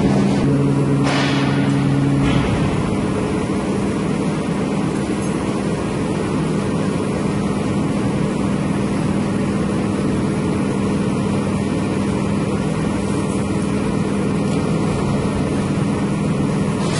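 Large sheet-metal bending machine running in a steel workshop: a steady mechanical hum with a low drone under a constant noisy wash. Some extra low tones drop out about two seconds in.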